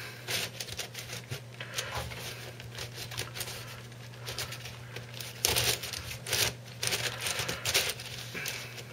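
Plastic pieces of a Pochmann Super Petaminx twisty puzzle clicking and rattling as its layers are turned by hand while it is being scrambled. The clicks come in irregular bursts, busiest a little past halfway.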